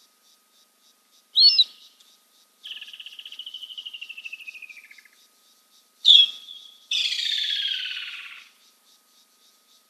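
Bird calls: a sharp note, then a trilled whistle that slowly falls in pitch for about two seconds; a second sharp note, then a louder, harsher trill falling further. Crickets chirp steadily about five times a second throughout.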